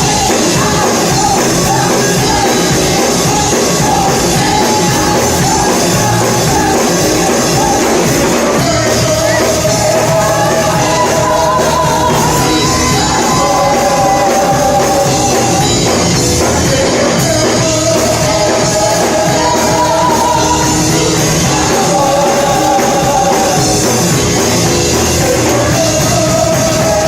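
Live church worship music: a band playing while voices sing long held notes in repeated phrases.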